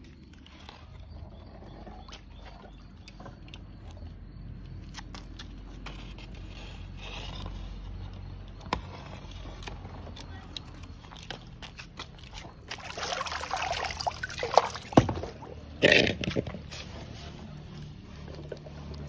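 Small toy cars being moved by hand over a rough, rocky surface: scattered scrapes and clicks, a denser scraping stretch later on, and a few louder knocks near the end.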